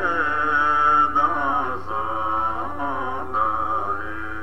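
Chant-like music of long held sung notes, the pitch changing every second or so, over a steady low hum.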